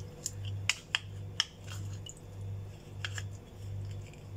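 A wooden spatula pressing and scraping spiced solids against a fine metal mesh strainer over a steel bowl, giving scattered light clicks, as the last of the mutton stock is squeezed out. Underneath runs a steady low hum that swells and fades about every three-quarters of a second.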